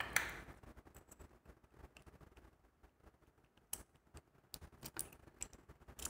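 Faint, scattered small metal clicks and taps from a brass padlock core and its key being handled, with a few more clicks around four to five seconds in.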